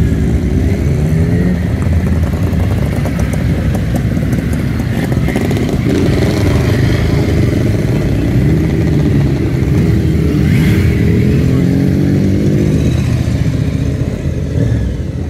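A stream of motorcycles riding past one after another, each engine's note rising and falling in pitch as it goes by.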